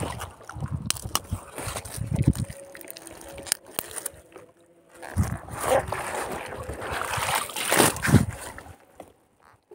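A catfish being worked free of a nylon gill net by hand at a boat's side: irregular rustling of net mesh and a plastic bag with scattered clicks, water trickling and sloshing. It falls quiet briefly a little before halfway and again near the end.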